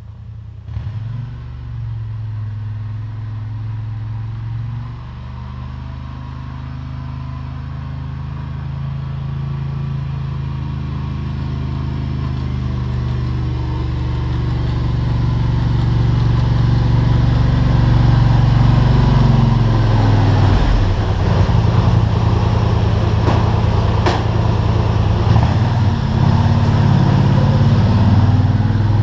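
ATV engine running while the quad plows snow, growing steadily louder as it draws near. The engine speed rises and falls about two-thirds of the way through.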